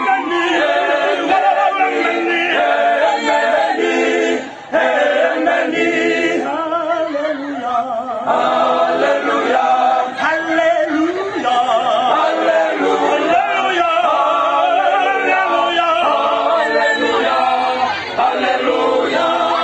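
Male voice choir singing a cappella in Fijian, several voices in parts, with a short break between phrases about five seconds in.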